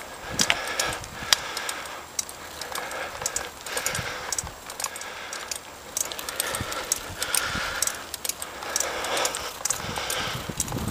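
Bicycle being ridden along a rough paved path, its parts rattling with many irregular clicks and knocks and the odd low thump.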